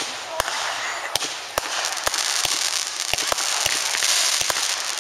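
Fireworks going off: about a dozen sharp cracks and pops at irregular intervals over a steady hiss.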